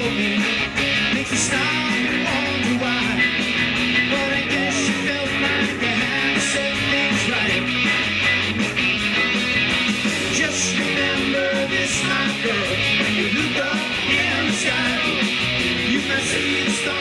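Live amplified rock band playing: electric guitars, drum kit and keyboard, with a steady beat and cymbal crashes every couple of seconds.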